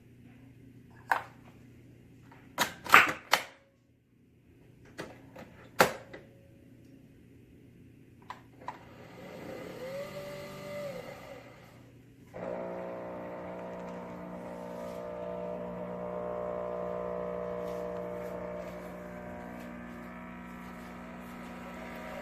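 A Nespresso Vertuo coffee machine: a few sharp plastic clicks and knocks as it is handled, then its motor spins up about ten seconds in and runs with a steady hum from about twelve seconds on as it brews.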